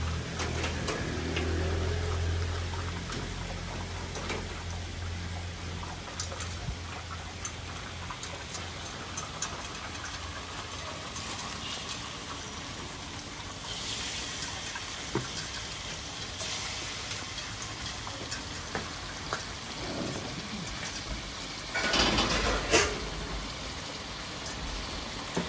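Raw chicken bones sizzling in a wok of spice paste, a steady crackling hiss with scattered small pops, and a louder burst of noise near the end.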